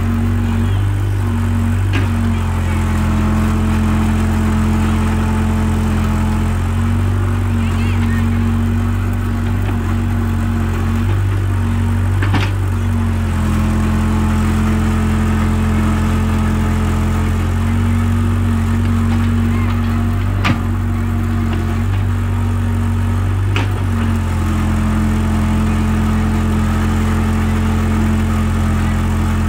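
Caterpillar tracked hydraulic excavator's diesel engine running steadily as the boom and bucket are worked, with a higher tone dropping out and returning as the load changes. A few sharp metallic clanks.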